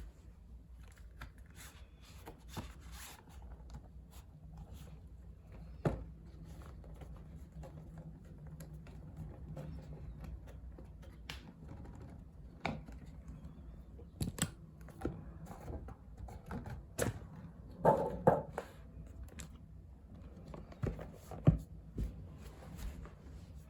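Packaging of a CD album being unwrapped and opened by hand: rustling, scraping and scattered taps and clicks, with the loudest knocks about eighteen seconds in and again a few seconds later.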